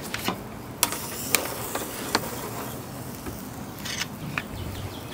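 Big stainless steel kebab skewers clinking on a metal tray and the steel rim of a charcoal grill box as they are picked up and laid across the coals: about five sharp, separate metallic clicks.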